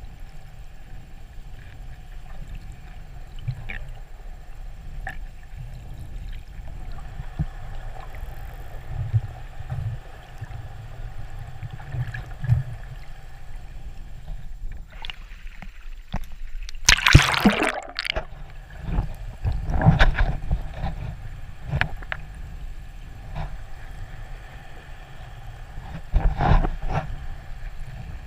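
Muffled underwater noise picked up through a camera housing: a steady low rumble with scattered clicks, and a few louder rushing bursts, the loudest a little past halfway.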